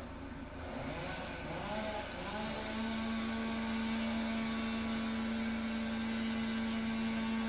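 Small engine, most likely a chainsaw, rising and falling in pitch a few times, then held at a steady high speed from about two and a half seconds in.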